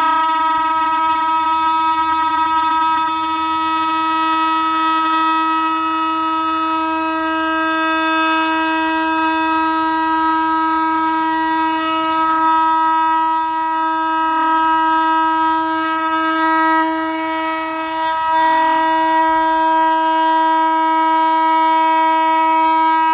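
Oscillating multitool cutting a notch in maple stair nosing, a loud, steady high-pitched buzz held under load. The level dips briefly about three-quarters of the way through, then the buzz picks up again. The blade is scorching the hardwood as it cuts.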